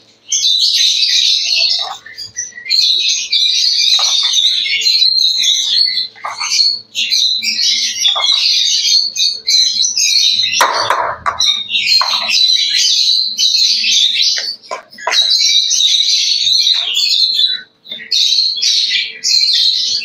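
A flock of lovebirds chattering with high-pitched calls almost without pause, with a brief clatter about halfway through.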